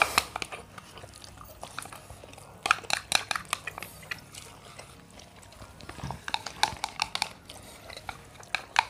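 Close-up eating sounds of noodles being chewed, with short clusters of smacks and clicks coming in four bursts.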